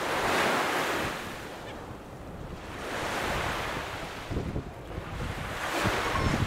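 Small waves breaking and washing up a pebbly shore, the surf swelling and fading about every three seconds, with wind buffeting the microphone.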